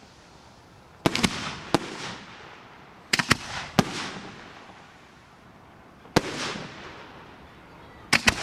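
Aerial fireworks bursting overhead: sharp bangs in clusters of one to several reports, a few seconds apart, each followed by a short fading echo.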